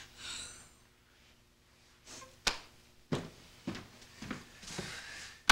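Quiet footsteps on a hard floor, a sharp click and then soft steps about every half second, ending in another sharp click.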